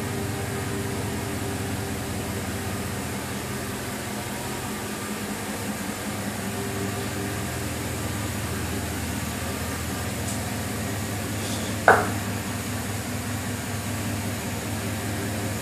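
Chevrolet Silverado pickup's engine idling with a steady low hum, with a single short click or knock about twelve seconds in.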